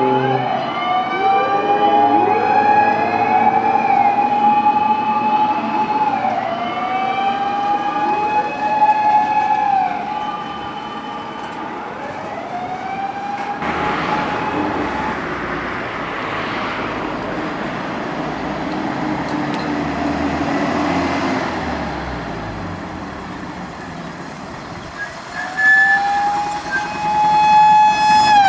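Fire rescue trucks' motor sirens wailing, each one winding up to a held tone and sliding back down, several overlapping at first. About halfway through, a truck's engine and road noise rush in as it passes and the sirens fade, then near the end a siren winds up again and holds.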